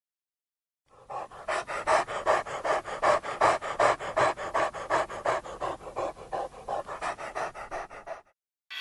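Rapid, rhythmic panting, about four breaths a second, starting about a second in and stopping shortly before the end.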